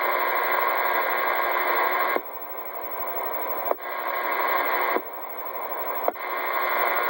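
Static hiss from a CB radio speaker that steps louder and quieter three times, with a sharp click at each change, as transmissions are keyed on and off.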